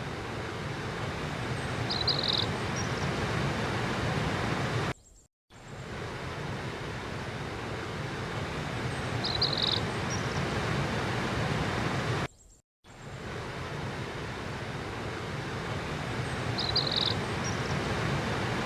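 Steady rush of flowing river water, with a short high bird chirp over it three times at even spacing. The sound cuts out briefly twice.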